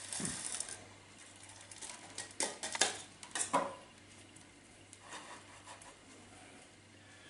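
Gritty rustling and clattering of granular bonsai soil shifting as a mulberry bonsai is raised a little in its pot. A run of short rough scrapes comes in the middle, with fainter rustles after.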